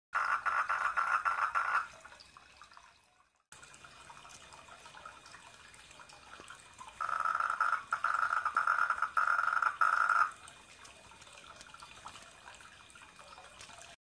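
A frog calling: a fast pulsed trill in two bouts, one lasting under two seconds at the start and a longer one from about seven to ten seconds in, broken into short runs.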